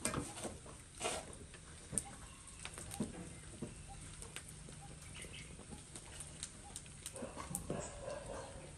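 Sausages frying quietly in a steel wok, with scattered light clicks of metal tongs against the pan. A few faint animal calls come near the end.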